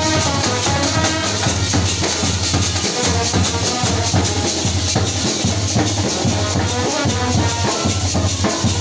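Indian procession brass band playing: a melody over steady drumming and rattling shaker percussion.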